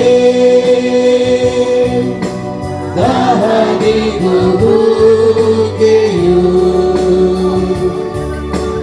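A Kannada Christian worship song: voices sing long, held lines ("you are the living water, a spring for the thirsty") over instrumental accompaniment with sustained chords and a moving bass line.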